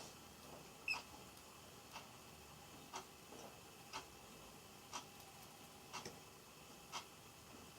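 Faint clock ticking steadily, one tick a second, with one sharper, higher click about a second in.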